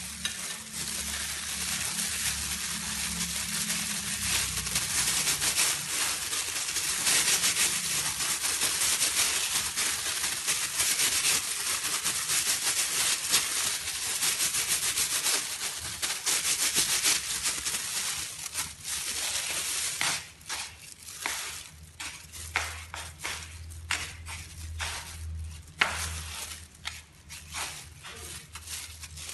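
Clear plastic food glove crinkling and rustling as a gloved hand shapes a chicken-filled glutinous rice ball and rolls it in breadcrumbs. A dense, steady rustle breaks into separate crackles after about twenty seconds.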